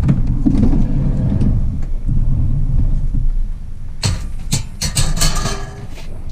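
A low rumble, then, from about four seconds in, a quick run of sharp metallic clanks and rattles as pieces of scrap metal are handled and thrown together.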